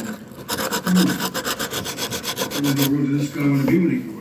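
Fast, even back-and-forth rubbing strokes on a small bugle's metal tubing, as in scrubbing or sanding it during restoration. The strokes start about half a second in and run for about two and a half seconds.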